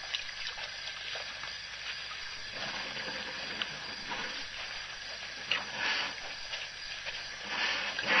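African elephants at a waterhole: soft splashes, swishes and trickling water, with small clicks, over a steady hiss. Two louder swishing swells come about two-thirds of the way through and near the end.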